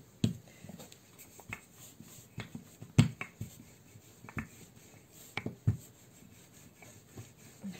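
Hands dusting flour onto a work table and setting a slab of dough down on it: scattered light taps and soft rubbing, with one sharper tap about three seconds in.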